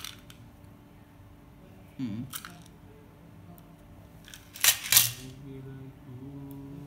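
A few sharp clicks and taps of small laptop parts being handled during reassembly, with two loud clicks close together about five seconds in.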